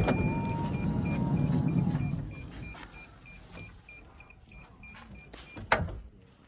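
A van's sliding side door sliding on its track: about two seconds of rough rumbling after a click, a rapid row of short high beeps like a power-door warning chime, then a sharp latch click near the end.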